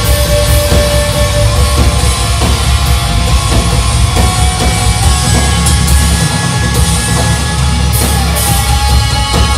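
Live atmospheric doom/sludge metal band playing loudly: guitar and bass over a drum kit, with steady drum hits under a dense, heavy wall of sound.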